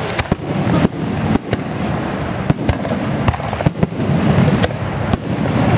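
Aerial firework shells bursting in a display, about a dozen sharp bangs at irregular intervals over a steady low rumble, heard from about a quarter mile away.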